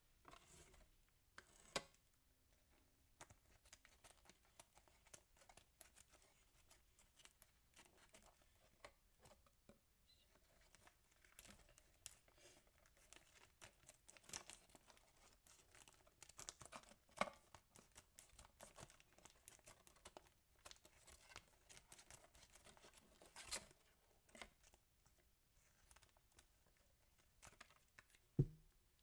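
Faint, sparse handling sounds from unpacking a cake: paperboard box flaps being opened and a plastic bag crinkling, with a few soft separate clicks.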